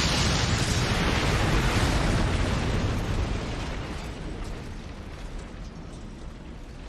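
Animated explosion sound effect: a loud, rumbling, hissing blast that holds for about three seconds and then dies away.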